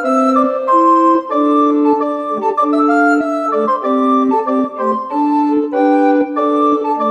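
Instrumental background music: a melody of steady held notes, one after another.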